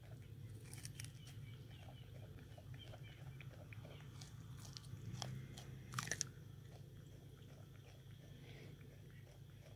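Wallaby biting and chewing kernels off a corn cob held in a hand: faint crunching chews at about four a second, with a few sharper crunches, the loudest about six seconds in.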